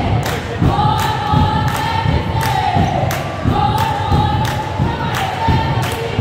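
Singing voices holding long, slowly bending notes over music, with a steady thumping beat about twice a second.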